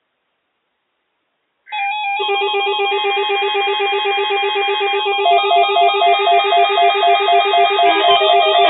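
Weather alert radio receivers sounding their electronic alert tones, set off by the NOAA Weather Radio required weekly test. Several beeping, warbling tones start together abruptly about two seconds in, and more join and it gets louder about five seconds in.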